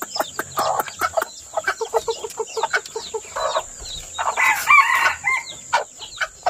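Chicks peeping rapidly, a steady run of short, high, falling cheeps, from under a brooding hen. The hen gives a harsh, louder call about four and a half seconds in, the loudest sound here.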